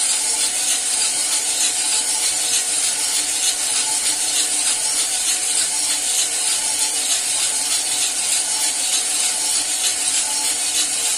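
Cormorant CR600 Electric coffee roaster running steadily mid-roast: the drum turns and the fan blows while the beans tumble inside, a steady rustling hiss with a faint motor hum. The beans are at about 100 °C, in the drying stage well before first crack.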